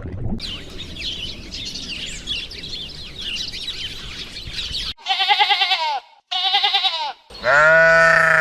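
A chorus of small birds chirping rapidly, then a goat bleating three times in quick succession, the last bleat the longest and loudest.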